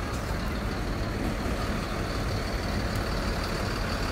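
Heavy truck engine running steadily, a low rumble with hiss above it.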